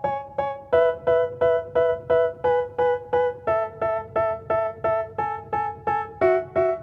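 Background music: a keyboard playing short repeated chords in a steady rhythm, about three a second, moving to a new chord about every three seconds, with no vocals.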